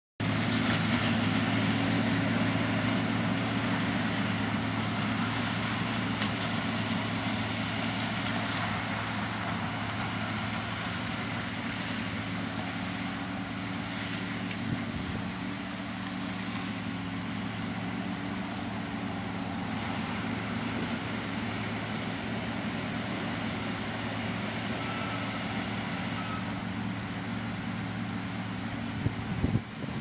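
Sugarcane harvester working the cane: a steady engine drone under a broad rushing noise from its cutting and extractor machinery. It eases off a little over the first half, and a few sharp knocks come near the end.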